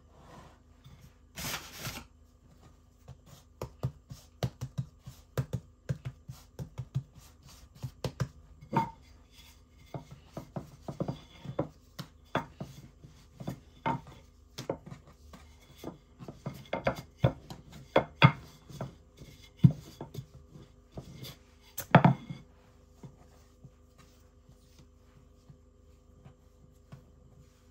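Irregular light knocks, taps and rubbing of things being handled on a kitchen counter, a few a second, for about twenty seconds, then stopping.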